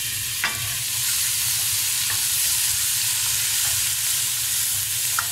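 Chopped tomatoes, onions and green chillies sizzling in hot oil in a stainless steel pot, cooked down into a soft masala base, while a wooden spoon stirs them. There is a steady frying hiss with a few light knocks of the spoon against the pot.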